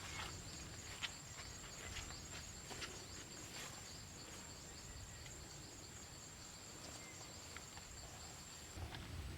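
An insect, cricket or cicada, calling with a steady, faint, high-pitched trill that stops shortly before the end, over light scattered clicks and rustles in the first few seconds.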